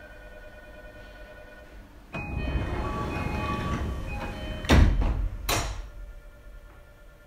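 Tokyu 2020 series commuter train's sliding doors opening at a station stop: a sudden rush of noise about two seconds in, then two loud thunks less than a second apart as the doors reach their stops.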